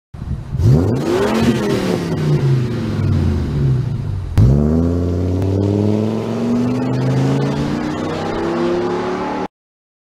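Ford Econoline van's V10 engine accelerating, its pitch climbing and then dropping. After a sudden jump in level about four and a half seconds in, the pitch climbs steadily again, and the sound cuts off abruptly near the end.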